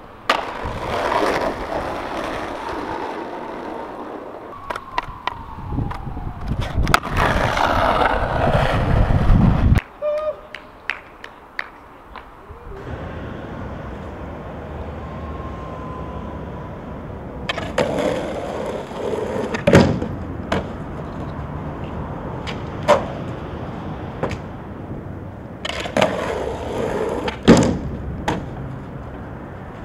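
Skateboard sounds on concrete: wheels rolling loudly, sharp tail pops and clacks, and the board and wheels slapping down on landings, over several separate tries.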